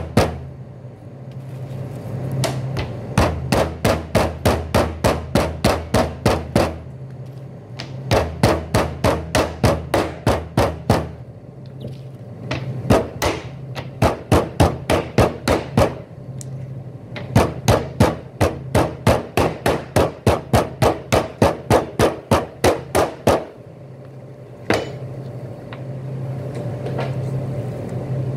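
Metal meat tenderizer mallet pounding beef ribs flat on a plastic cutting board, in quick runs of about five blows a second with short pauses between. The blows stop about three-quarters of the way through, leaving a steady low hum.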